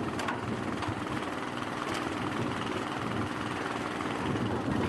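Small engine running steadily, driving a hydraulic rescue cutter whose jaws are at work on a wrecked car's metal, with a few faint clicks from the metal.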